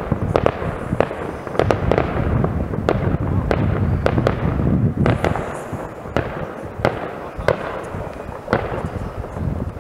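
Many fireworks going off across a town at once: frequent sharp bangs at uneven intervals, some much louder than others, over a steady low rumble.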